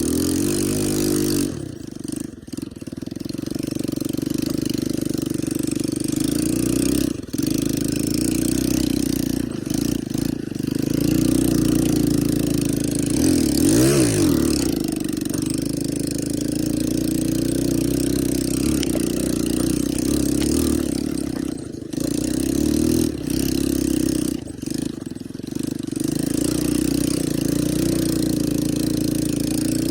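ATV (four-wheeler) engine running steadily, with a rise and fall in revs about halfway through and several brief dips in level along the way.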